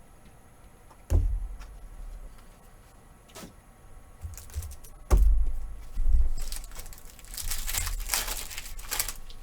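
Trading cards and packs being handled on a table: a couple of dull knocks, then a stretch of rustling and sliding near the end.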